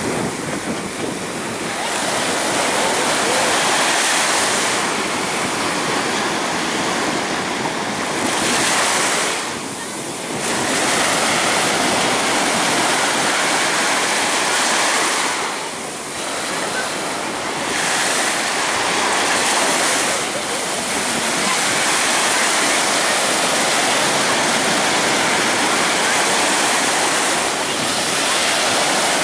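Small waves breaking and washing up on a sandy beach: a steady hiss of surf that swells and eases, dipping briefly about ten and sixteen seconds in.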